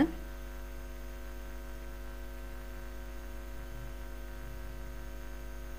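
A steady electrical hum: a low buzz with many even overtones, unchanging throughout, with no frying sizzle or spatula scraping heard.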